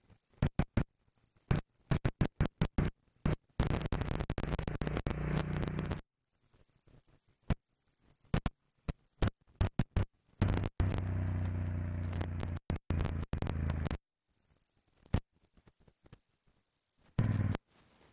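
Choppy electronic music: a run of sharp clicks, two sustained synth blocks of a few seconds each that cut off suddenly into silence, and scattered stutters near the end.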